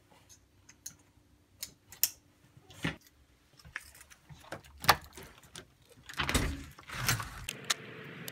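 Light metallic clicks and jingling from a dog harness and leash being clipped on, then a door being opened. A louder rustling stretch comes near the end.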